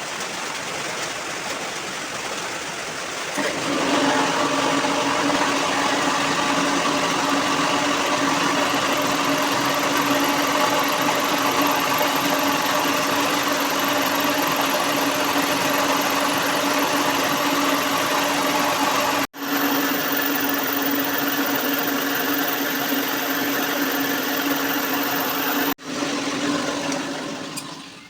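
An electric power tool's motor running steadily with a high hum, growing louder a few seconds in; the sound cuts off abruptly twice and picks up again.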